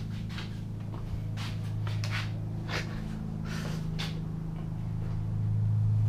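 Several short scuffs and rustles of someone moving about and handling a dirt bike's front end, over a steady low hum.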